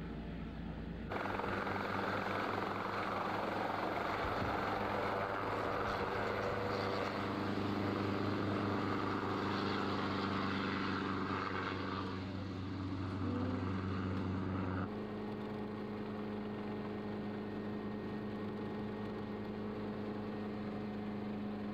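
A motor engine running steadily, its tone changing abruptly twice where the footage is cut.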